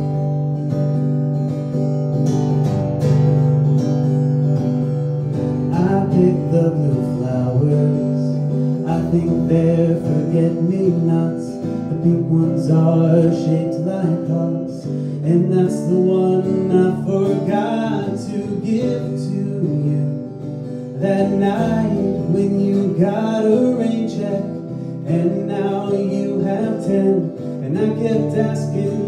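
Acoustic guitar being strummed live, playing the opening of a song.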